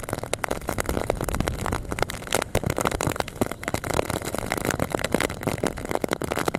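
Heavy rain striking the camera and boat as a dense, irregular mass of drops, over the low steady running of a longtail boat's engine under way.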